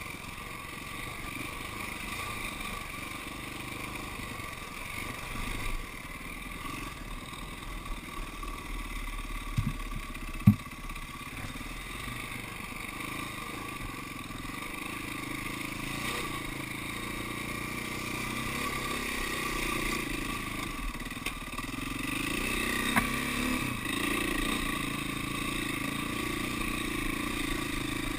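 KTM dirt bike engine running while the bike rides a rough dirt trail, its pitch rising and falling with the throttle in the second half. A few sharp knocks cut through, the loudest about ten seconds in and another a little past twenty seconds.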